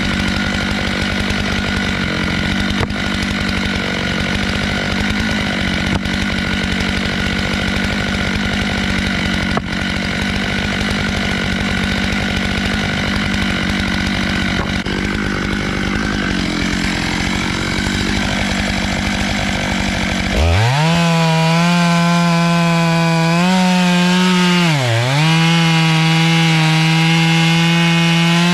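Stihl MS 661 chainsaw on a small log mill, running at high revs and cutting through a round of black walnut or apple. About 20 seconds in, the cutting noise drops away and the engine carries on as a clean, steady tone, with one brief dip in speed.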